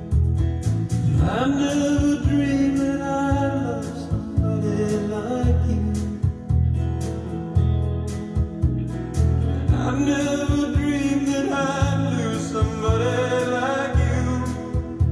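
A song with a male singing voice, guitar and bass, played from CD through a home hi-fi amplifier and loudspeakers and picked up in the room. It has sung phrases about a second in and again around ten seconds in, over steady bass notes.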